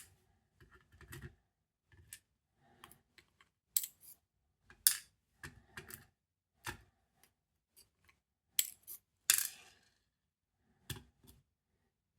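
Small metal pins and springs from a dimple lock being taken out and set down on a hard surface: scattered light metallic clicks and ticks, with a couple of louder ones about five and nine seconds in.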